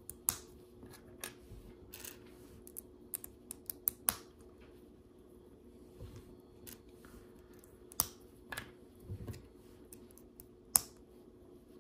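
LEGO plastic bricks being handled and pressed together: irregular sharp clicks and light taps, a few louder snaps near the end.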